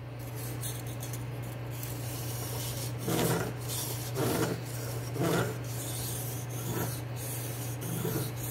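D2 steel knife edge, held at a fixed angle by a clamp-on guide, scraping back and forth across the coarse side of a sharpening stone, grinding to form the edge's apex. The strokes grow louder about three seconds in and then come about once a second.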